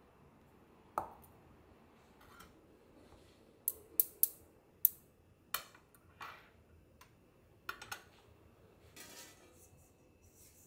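Stainless steel kitchen tools, a measuring cup and tongs, handled and set down on a stone countertop: a knock about a second in, then a scattered run of sharp metal clicks and clinks.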